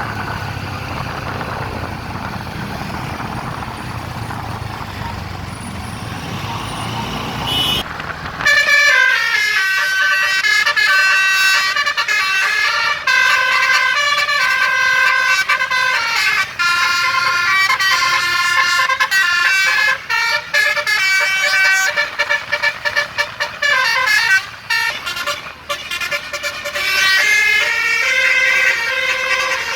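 Engine and road noise for about the first eight seconds, then a tour bus's telolet 'basuri' musical horn playing a quick tune of high stepping notes, with short breaks, through to the end.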